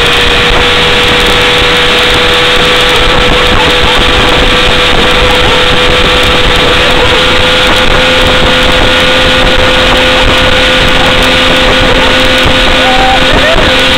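Evinrude 70 hp outboard motor running steadily at speed, pulling a towed tube, with a steady engine tone under a loud rush of water and air.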